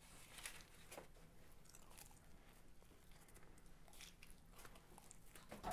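Faint biting and chewing of a slice of pizza: a few scattered soft crunches and mouth clicks.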